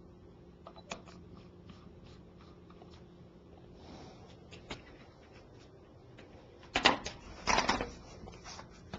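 Faint clicks and small taps of a precision screwdriver and small metal parts on a phone during disassembly, with two louder clatters about seven seconds in.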